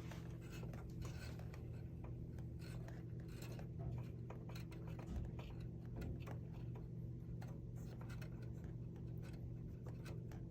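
Faint scratching and light ticks of thin wires being fed by hand through the lens-holder arm of a Zeiss visual field analyzer, over a steady low hum.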